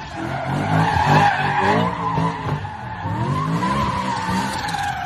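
Car tyres squealing in one long, slightly wavering screech, with the car's engine revving up and down beneath it.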